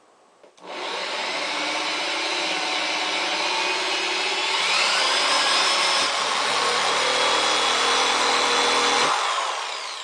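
Corded electric drill boring a 1-inch hole through the plastic lid of a 5-gallon bucket. The motor starts just after the beginning and runs steadily with the bit cutting the plastic, rising in pitch about halfway, then spins down and fades about nine seconds in.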